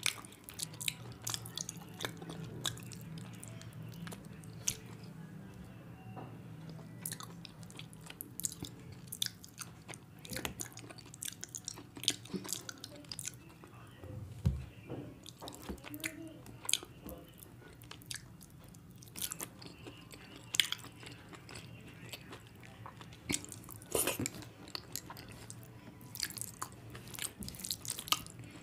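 Close-miked eating sounds of a person chewing mouthfuls of rice and curry eaten by hand, with frequent sharp wet mouth clicks and smacks over a faint steady low hum.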